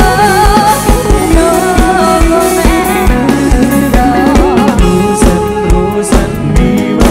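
Live rock band playing through a large outdoor PA: a sung melody with vibrato over guitar and a steady kick-drum beat, with cymbals coming in during the second half.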